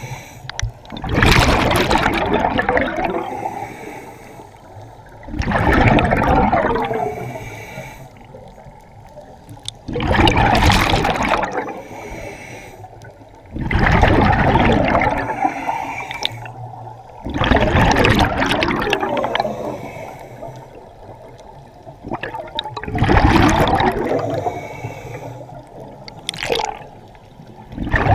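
A scuba diver breathing through a regulator, heard underwater through a GoPro housing: a loud gush of exhaled bubbles about every four seconds, seven in all, each fading away before the next breath.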